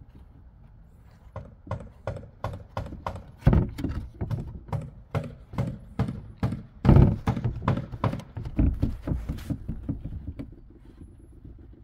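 A run of sharp knocks, about two to three a second for several seconds, over a low steady hum.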